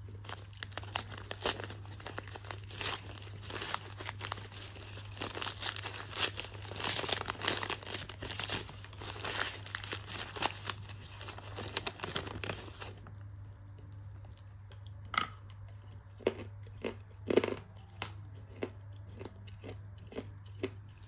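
Brown paper bag crinkling and tearing as it is pulled open, a dense crackling rustle for about the first thirteen seconds. After that it turns quieter, with a few separate crisp crunches and snaps.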